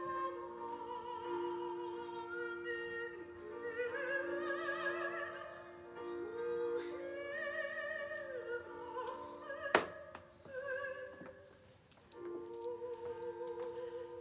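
Classical vocal music: an operatic voice sings long held notes with a wide vibrato over a steady sustained accompaniment, in phrases with short pauses between them. A single sharp click stands out about ten seconds in.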